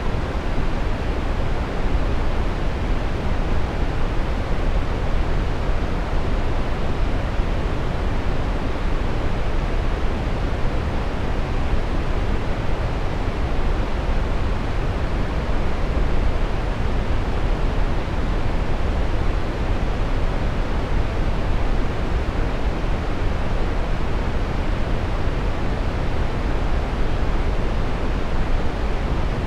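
Steady brown noise: an even, unchanging rumbling hiss, heaviest in the low end and thinning toward the top.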